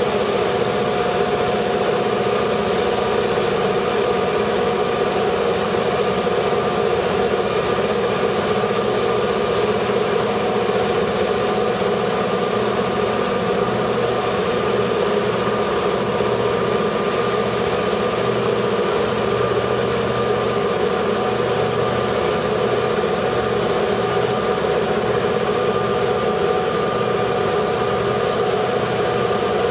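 EMD GP38 diesel-electric locomotives with V16 two-stroke engines working hard at crawling speed up a steep grade: a loud, unbroken engine drone with a steady whine held over it.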